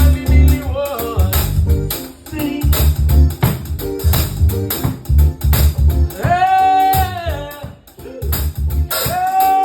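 Live band music with a pulsing bass line and drums. Twice in the second half, a long high note is held.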